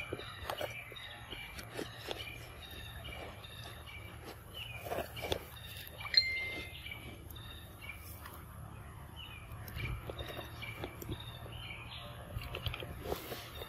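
Birds chirping in short, repeated calls throughout, over a low steady hum. A sharp click with a brief whistled note comes about six seconds in, the loudest moment.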